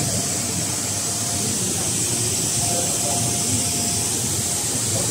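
Woven-sack double-side coating machine running: a steady mechanical rumble under a constant high hiss, with a faint whine that comes and goes.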